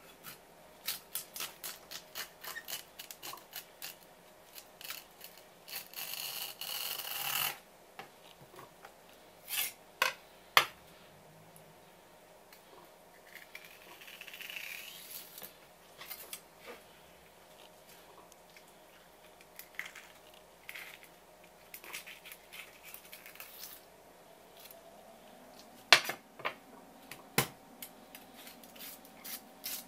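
A kitchen knife cutting through a raw conger eel on a wooden cutting board: many small clicks and taps of the blade and fish on the board, a longer scraping cut about six seconds in, a softer slicing sound mid-way, and a couple of sharp knocks near the end.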